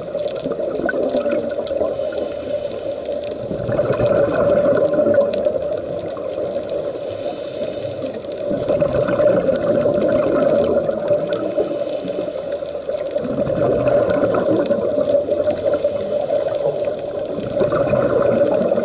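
Scuba diver breathing through a regulator underwater. Four bursts of exhaled bubbles come roughly every four to five seconds over a steady hiss, muffled by the action camera's waterproof housing.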